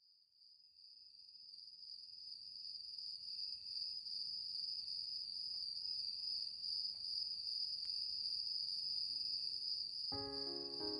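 A steady high-pitched trill, like night insects, fades in from silence over the first few seconds and then holds even. Near the end, music with a line of pitched notes begins over it.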